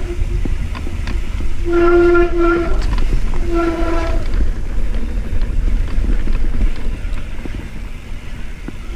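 Mountain bike disc brakes honking in short bursts with a steady pitch, about two seconds in and again about three and a half seconds in, over a constant low rumble of tyres on a dirt trail and wind on the microphone.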